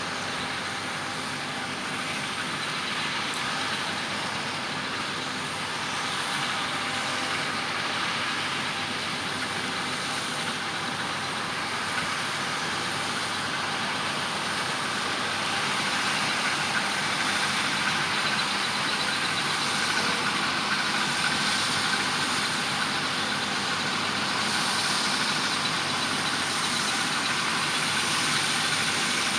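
John Deere S785 combine harvester running steadily as it works a crop of oilseed rape, a continuous engine hum with hiss and faint whine. It grows slightly louder about halfway through.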